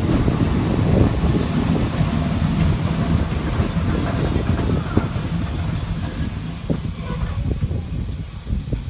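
A train running on its rails, heard from on board: a steady low rumble, with faint high-pitched wheel squeals about halfway through. The rumble eases off toward the end.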